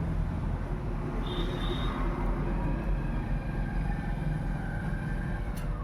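Steady low background rumble and hiss, with a faint high tone a little over a second in and a single sharp click near the end.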